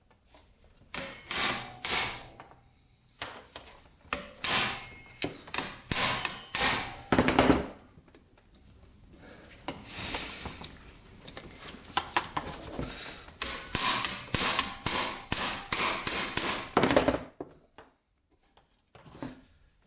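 Sharp metal-on-metal strikes with a high ringing tone as a tool is worked against the rusted, seized screws in a Honda XR100 engine case. They come in three groups: a few about a second in, more in the middle, and a quick run of about ten near the end.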